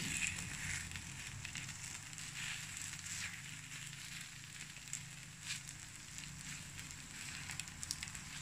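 Takoyaki batter sizzling and crackling in the wells of an electric takoyaki plate as a bamboo skewer turns the balls, with scattered small crackling clicks over a steady hiss.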